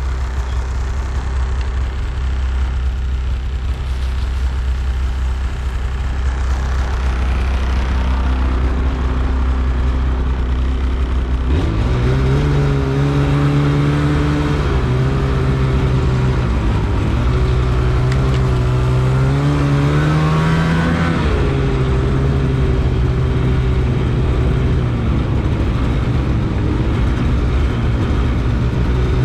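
Polaris off-road machine's engine running on a trail, a steady low drone at first. About a third of the way in, a stronger engine note comes up that climbs and falls with the throttle, then settles.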